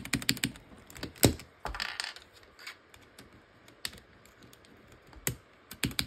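Keys of a Razer Huntsman Mini with clicky Razer Purple optical switches and thick PBT keycaps being pressed: a quick run of clacks at the start, a few single presses spread through the middle, and another fast run near the end. The keycaps give the presses a lower-pitched sound.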